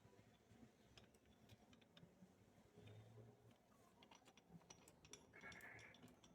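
Faint, scattered light clicks and taps of small steel parts being handled: differential gears and pins being fitted into the differential carrier.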